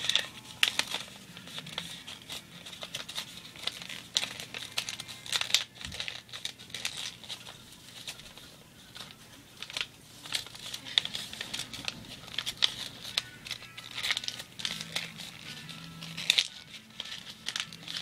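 A sheet of paper being folded and creased by hand, crinkling and rustling in short, irregular crackles.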